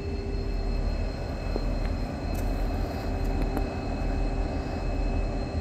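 Diesel locomotive standing with its engine just started and running steadily: a low rumble with a steady whine over it.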